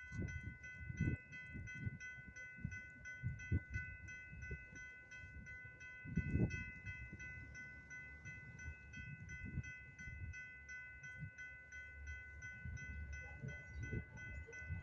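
Railroad grade-crossing warning bell ringing in a steady, even rhythm of about three strokes a second, over low gusts of wind on the microphone.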